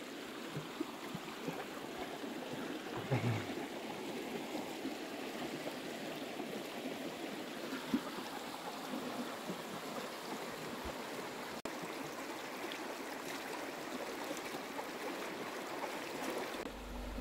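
Río Blanco, a snowmelt-fed mountain river, flowing with a steady, even rush of water. The rush cuts off just before the end.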